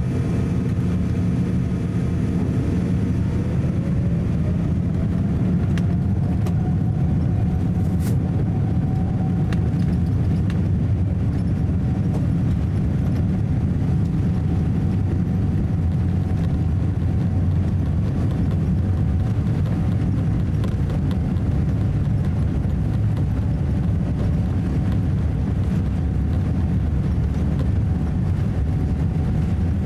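Jet engines of a Boeing 787-8 heard from inside the cabin, spooling up for takeoff: a whine rises in pitch over a few seconds, then holds steady over a loud, even rumble.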